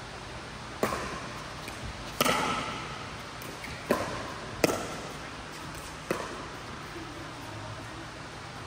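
Pickleball rally: paddles striking the plastic ball about five times, each sharp pop echoing in a large indoor court hall, with a few fainter taps between.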